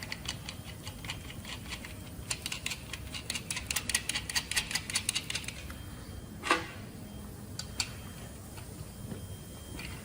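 Hand work on a truck brake chamber and air-disc brake caliper: a quick run of small metallic clicks for about three seconds, then one sharp metal knock, with a few lighter clicks after.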